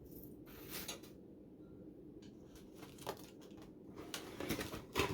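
Faint rustling of item wrapping being handled: a few soft crinkles, getting busier near the end.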